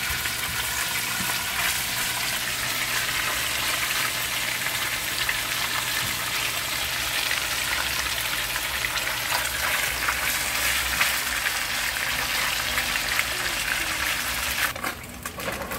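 Tilapia fillets frying in hot oil in a skillet: a steady, dense sizzle that drops away sharply near the end.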